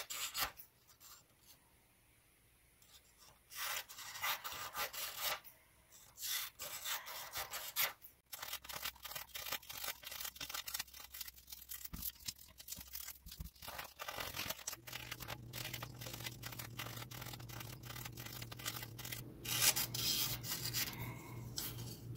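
Scissors cutting through sheets of printer paper in runs of snips, with paper rustling as the cut strips are handled. There is a short lull about a second in.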